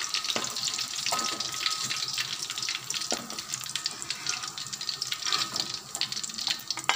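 Hot oil sizzling and crackling in a wok with frying curry leaves: a steady hiss full of small pops. A metal spatula knocks against the pan a few times.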